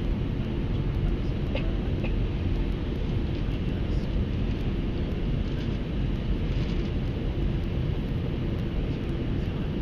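Steady engine and airflow rumble heard inside the cabin of an Airbus A320 airliner, deep and even with no change in level.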